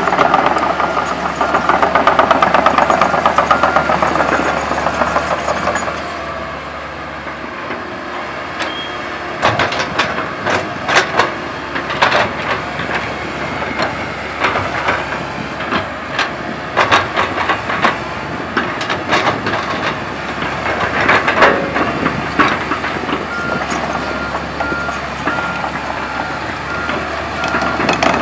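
Komatsu PC130 hydraulic excavator working, with its engine running and its steel tracks and undercarriage clanking. Scattered sharp metal clanks come in the middle. Its travel alarm beeps steadily at the start and again near the end.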